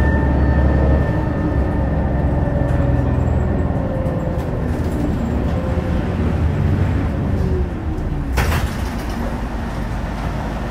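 Mitsubishi Fuso LKG-MP37FKF city bus heard from inside: its diesel engine and drivetrain running, falling in pitch as the bus slows. About eight seconds in there is a sudden short hiss of air.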